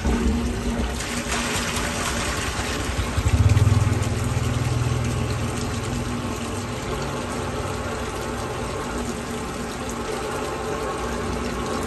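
Drain-cleaning machine running with its cable turning inside a blocked drain pipe, a steady motor hum, while grey sludgy water pours out of the pipe opening into the pit. The hum swells for a second or so about three and a half seconds in.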